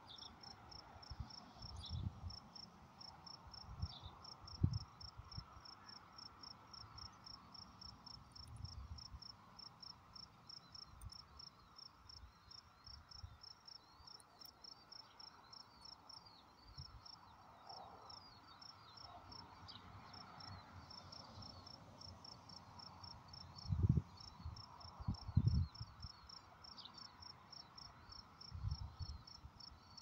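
Cricket chirping steadily, two or three short high chirps a second. A few low rumbles come through, the loudest twice near the end.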